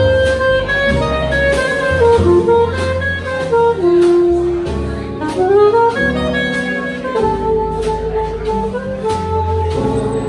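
Live small-group jazz: a saxophone plays a melodic solo line, sliding between some notes, over upright bass and drums.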